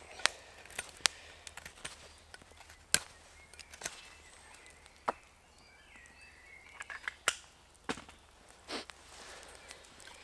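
Scattered sharp cracks and clicks of wood, a dozen or so at irregular intervals, the loudest about three seconds in.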